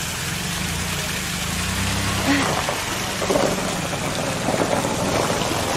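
Water gushing steadily out of a torn above-ground pool wall, with a minivan's engine running in a low hum underneath.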